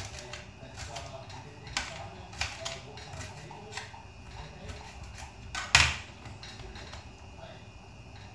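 Knife slicing cucumber on a chopping board: irregular sharp taps as the blade meets the board, with one louder knock a little before six seconds in.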